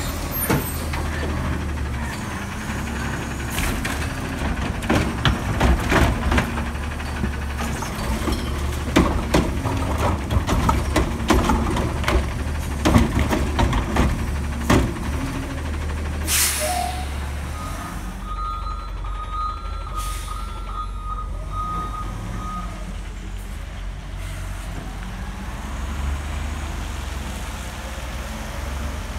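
Front-loading garbage truck with a carry-can arm, its diesel engine running under loud clanks and clatter as the arm and can work and recycling tumbles in, through roughly the first half. About 16 seconds in comes a short air-brake hiss, followed by several seconds of reversing beeps.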